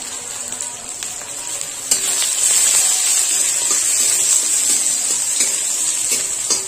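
Sliced onion, green chillies and cumin sizzling in hot oil in a metal kadhai, stirred with a steel spatula that scrapes the pan now and then. The sizzle grows louder about two seconds in and holds.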